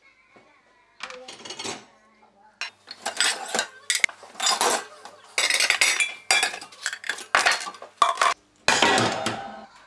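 Ceramic dishes and mugs clinking and clattering against each other and a stainless-steel wire dish rack as they are lifted out and stacked. The clatter starts about a second in, then comes in quick, dense runs until near the end.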